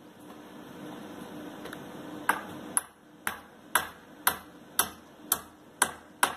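A run of sharp clicks with a brief ring, about two a second and evenly spaced, starting about two seconds in.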